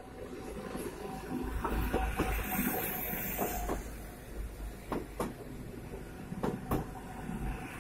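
Electric multiple unit passing close by at speed: a steady rumble of wheels on rail, with a steady tone underneath and pairs of sharp knocks as the wheelsets cross rail joints, three times.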